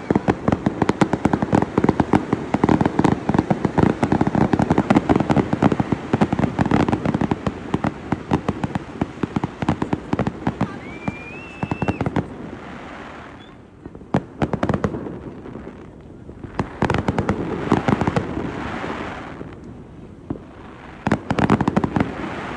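Fireworks going off: dense, rapid crackling and popping of bursting aerial shells for the first half, a short rising whistle about halfway through, then pauses broken by further clusters of crackling bursts.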